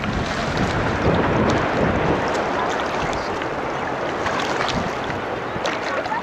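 Water splashing and sloshing as people swim and wade in shallow sea water, over wind noise on the microphone.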